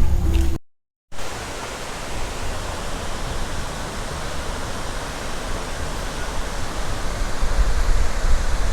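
Waterfall pouring: a steady rush of falling water that starts after a short break about a second in.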